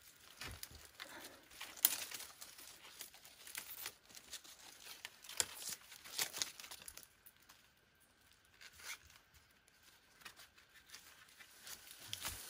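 Leaves and twigs rustling and crackling as they are handled, in irregular short bursts with brief pauses.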